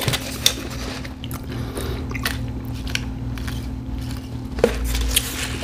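A person chewing food close to the microphone, with scattered short mouth clicks.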